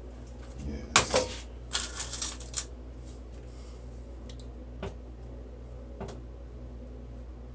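Handling noise: a quick burst of rustles and sharp clicks about a second in, followed by two faint clicks, over a steady low hum.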